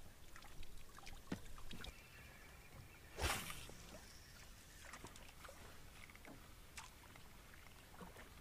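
Quiet sounds of a canoe on a lake: scattered light knocks and soft water sloshing against the hull, with one short louder rush of water or wind noise about three seconds in.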